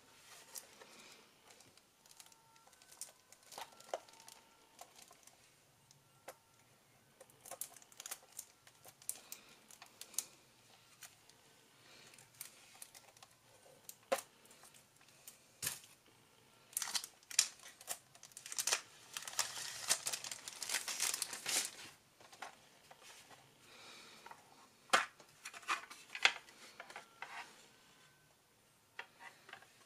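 Clear plastic shrink-wrap being torn and peeled off a sealed cassette tape case: crinkling and crackling with scattered sharp clicks, loudest about two-thirds of the way through. Near the end the hard plastic case clicks as it is opened and handled.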